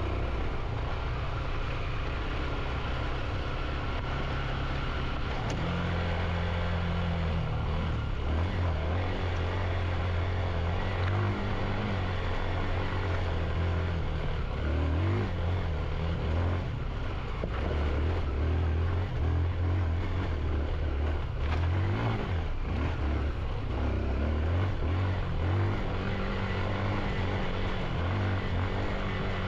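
Motorcycle engine running as it is ridden up a rough trail, its note getting stronger about six seconds in and rising and falling with the throttle, over a steady rushing noise.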